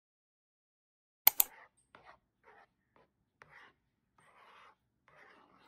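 A metal spoon stirring thick porridge in a bowl. It starts about a second in with two sharp clinks against the bowl, then a series of soft scraping strokes about two a second.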